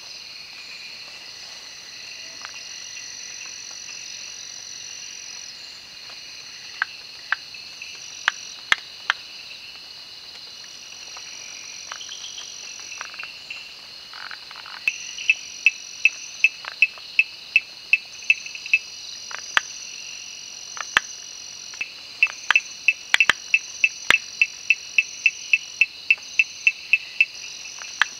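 Night chorus of crickets and other insects, a steady high trilling. Over it, frogs call in sharp clicking notes: a few single clicks, then two fast runs of about three clicks a second in the second half.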